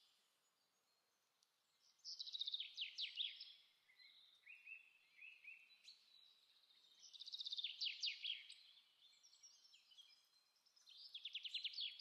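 A bird singing faintly: three phrases of quick, falling whistled notes, each about two seconds long and coming every four to five seconds, with softer chirps in between.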